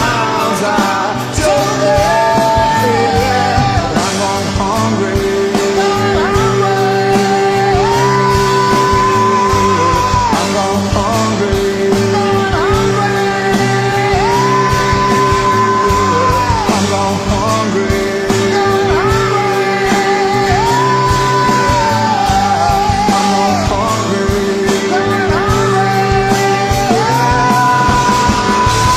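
Live rock band playing: long, wavering sung notes repeat in phrases about every four seconds over guitars and drums.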